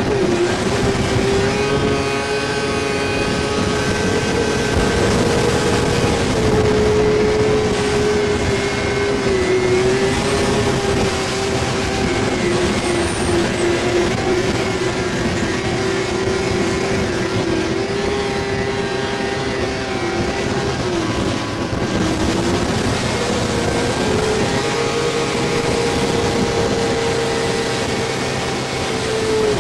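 Polaris two-stroke snowmobile engine held at high revs while the sled skips across open water, its pitch wavering slightly and dipping briefly a few times, over a steady rushing hiss.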